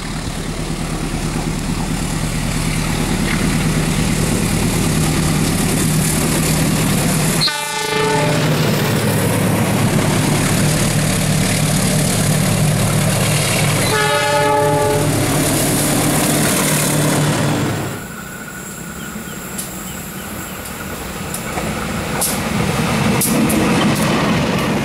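Diesel-electric locomotives passing with passenger trains: a steady engine drone over wheel and rail noise, with the locomotive horn blowing briefly about seven seconds in and again, a little longer, around fourteen seconds. About eighteen seconds in the sound drops to a quieter rumble of passing carriages with clicking wheels.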